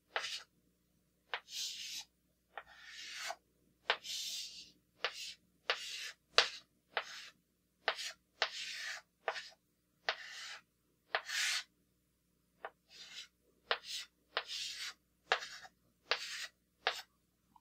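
Chalk drawing on a blackboard: a run of short scratchy strokes and sharp taps as lines are drawn, with brief pauses between them.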